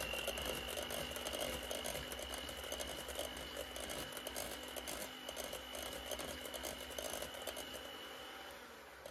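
Electric mixer beating freshly cooked choux dough to cool it: a steady motor whine with a busy run of light clicks from the beater working the dough, stopping near the end.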